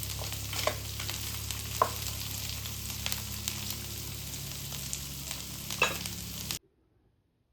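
Food sizzling in a frying pan while being stirred, with a few sharp knocks of the utensil against the pan. The sound cuts off abruptly near the end.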